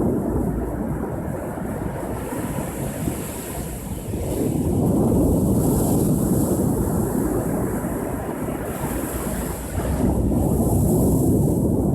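Ocean surf: waves breaking and washing in, swelling louder about four seconds in and again near ten seconds, with wind rumbling on the microphone.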